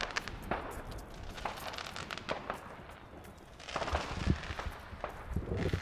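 Fireworks crackling and popping: scattered sharp cracks that thin out for about a second in the middle, then pick up again with a few louder bangs.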